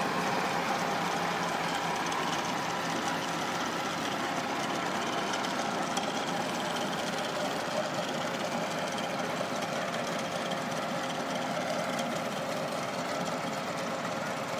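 Massey Ferguson 385 tractor's four-cylinder diesel engine running steadily under load, driving a tubewell's twin pumps through flat belts and pulleys.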